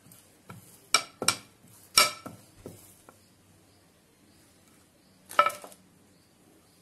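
Wooden rolling pin knocking and clinking against a round metal rolling board while a paratha is rolled out: a few sharp, ringing clinks about one and two seconds in, and another cluster near the end.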